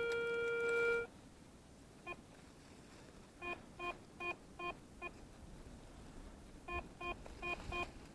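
Garrett ACE 350 Euro metal detector signalling a target. A steady tone holds until about a second in. Then come short, lower beeps: one alone, then two runs of about five at two to three a second as the coil is swept back and forth over buried metal.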